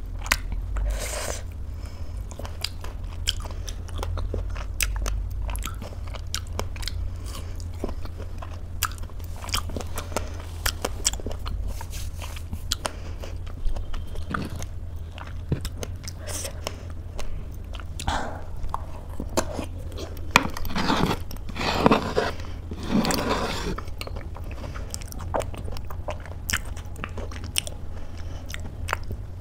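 Close-miked eating: a person biting and chewing a strawberry, then eating spoonfuls of oatmeal, with many small wet mouth clicks throughout and a louder stretch of chewing a little after the middle.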